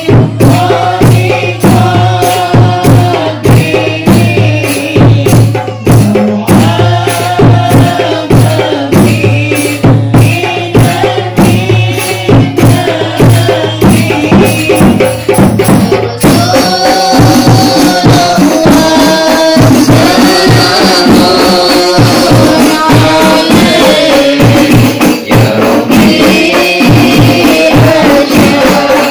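A group of women singing sholawat, Arabic devotional songs in praise of the Prophet, in unison. Rebana and hadroh frame drums beat a steady rhythm under the singing. About halfway through, the singing rises higher and fuller.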